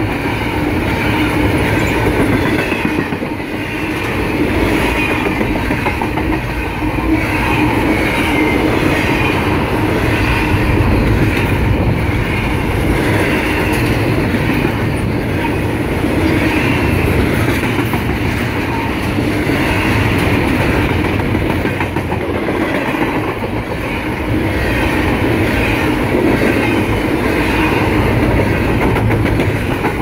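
Double-stack intermodal container well cars of a CSX freight train rolling past close by, a steady, continuous noise of wheels on the rails.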